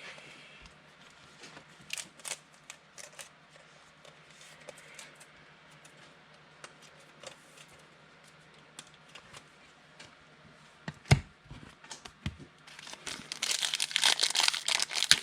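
Scattered light clicks and taps, with a sharper knock about eleven seconds in, then a trading card pack's wrapper being torn open, with loud crinkling and tearing near the end.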